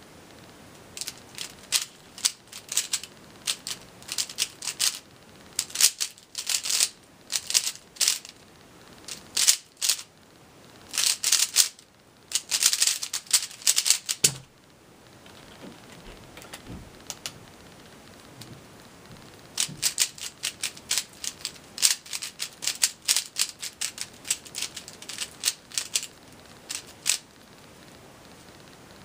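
A Zhanchi Silk 3x3 speedcube turned fast, in quick bursts of plastic clicking, during a timed solve that ends about fourteen seconds in with a soft thump. After a few seconds' pause come more bursts of turning as the cube is scrambled.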